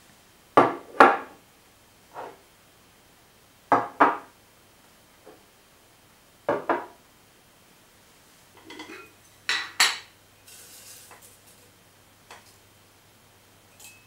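Glass jars set down one after another on a hard tabletop, each landing as a double clunk, four times, with a few lighter taps between them and a short soft rustle a little after ten seconds in.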